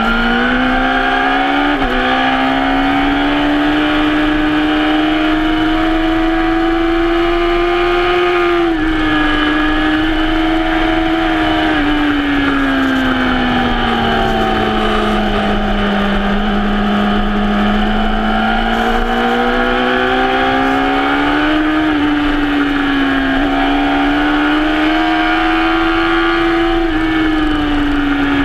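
Suzuki GSX-R sportbike's inline-four engine at speed on track, heard from onboard. The engine note climbs over the first eight seconds with a brief dip about two seconds in, drops suddenly, sinks slowly through a slower stretch, then rises again and falls away near the end.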